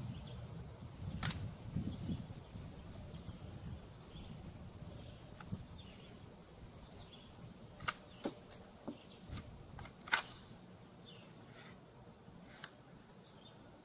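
Faint birds chirping, with a few sharp clicks and knocks: one about a second in and a cluster of louder ones around eight to ten seconds in.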